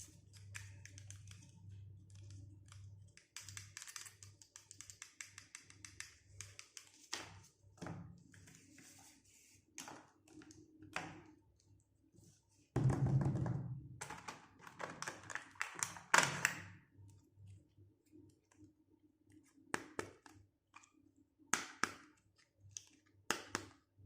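Small plastic toy pieces and packaging being handled: scattered light taps and clicks, with a few longer rustling stretches, the loudest from about 13 to 16 seconds in.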